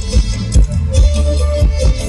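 Live Isan-style band music: a heavy, steady bass-drum beat under held instrumental tones.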